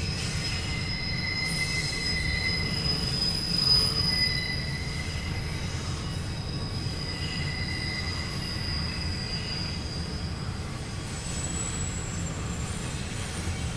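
CSX intermodal freight train rolling past with a steady low rumble, its wheels squealing in thin high tones that come and go.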